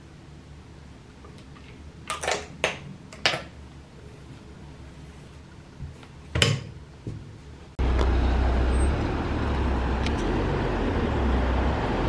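A few sharp clicks and light rustles in a quiet room, then, about eight seconds in, an abrupt cut to loud, steady outdoor road-traffic noise with a low rumble.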